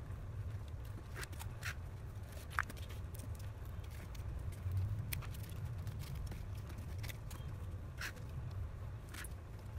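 Corrugated cardboard being handled and trimmed with scissors: scattered light taps, rustles and a few snips over a low steady rumble of room noise.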